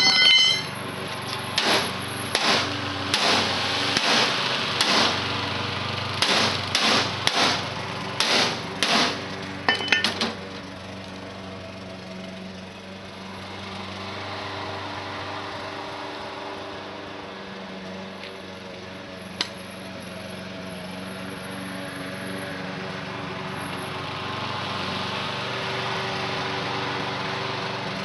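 A dozen or more sharp hammer-like blows in an uneven run over the first ten seconds, as the heater is smashed apart. After that a small engine drones steadily in the background, with one lone click in the middle.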